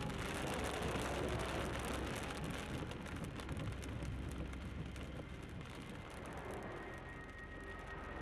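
Steady road noise of a car driving, with a rain-like hiss, easing off a little in the second half. Faint steady tones come in near the end.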